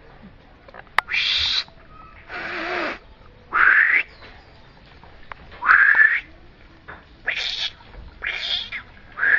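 A series of about seven short animal calls, each about half a second long, several of them rising in pitch.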